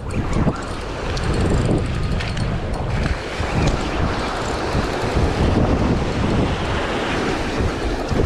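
Wind buffeting the microphone: a loud, rumbling roar that swells and eases in irregular gusts.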